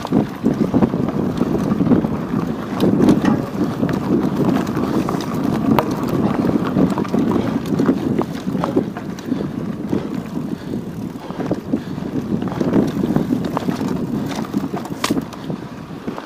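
Wind buffeting the microphone of a chest-mounted action camera on the move: an uneven low rumble with scattered light clicks and rattles throughout.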